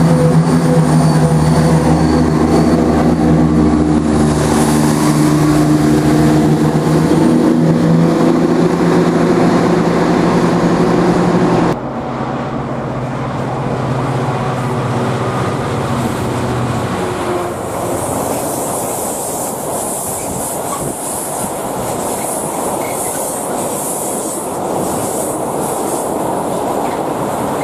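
A diesel multiple unit passing close by, its engines droning steadily. About twelve seconds in, the sound cuts to a diesel locomotive hauling a long container train. After a few seconds its engine drone gives way to the steady rolling of the wagon wheels on the rails, with a high hiss.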